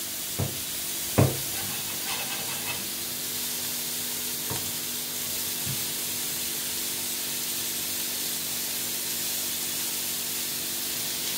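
Steak sizzling steadily in a frying pan on a gas burner, over a low steady hum. A sharp knock about a second in, and a few faint knocks later.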